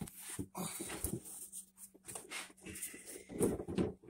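Hollow plastic toddler-bed rails being handled and fitted together, with irregular knocks and scrapes, several in quick succession near the end.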